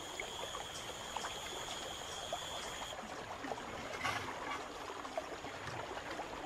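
Swollen river water flowing and trickling steadily. A thin, steady high whine sits over it and stops abruptly about three seconds in.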